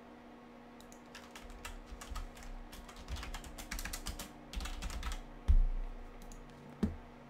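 Typing on a computer keyboard: a run of quick key clicks, then a louder thump about five and a half seconds in and a shorter one near the end.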